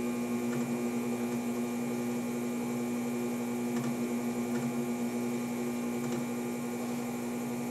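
Electric potter's wheel running at speed with a steady hum, and a few faint ticks.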